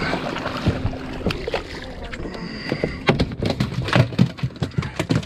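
Water splashing at the side of a small fiberglass boat as a hooked Atlantic sharpnose shark thrashes. From about three seconds in, a rapid run of sharp knocks and slaps as the shark is handled into the deck fish box and flops against the fiberglass.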